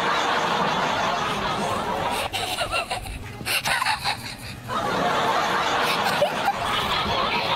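Laughter in two long stretches, with a broken, patchy gap of about two seconds in the middle.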